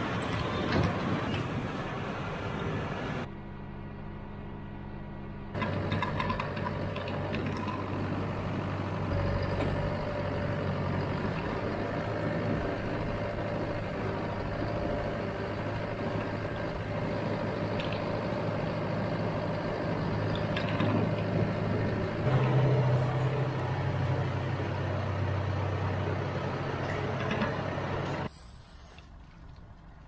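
John Deere loader tractor's diesel engine running steadily, heard from the cab while it pulls a feed wagon, with a steady whine over it for much of the time. The sound drops away briefly about 3 s in, and near the end it cuts to a much quieter background.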